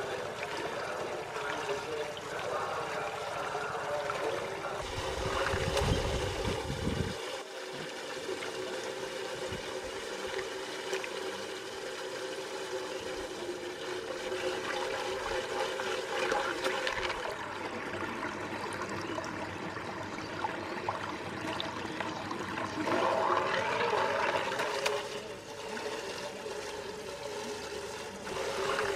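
Water swirling and draining down a whirlpool's central hole in a continuous rushing, trickling wash, with a steady hum underneath and a louder low rumble about five to seven seconds in.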